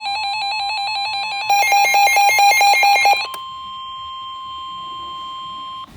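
Emergency alert tones: rapid electronic alarm beeping, louder about halfway through, over a steady alert tone. The beeping stops about three seconds in, leaving the steady tone, typical of the 1050 Hz weather radio warning alarm, which cuts off near the end.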